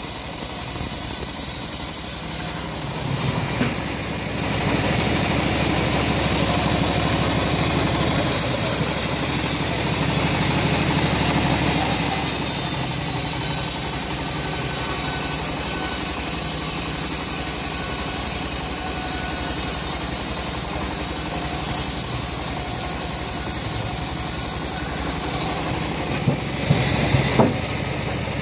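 Homemade bandsaw mill sawing lengthwise through a teak log, a steady rasping cut with the machine running under it. A few short knocks come near the end.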